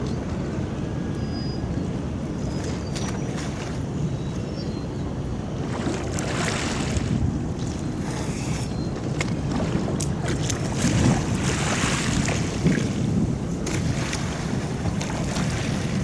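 Harbour sea water lapping and splashing against the quay, coming in several hissing surges, over a steady low rumble.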